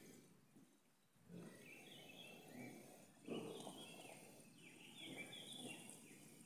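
Faint chirping of small birds, short falling notes repeating, over a low outdoor murmur.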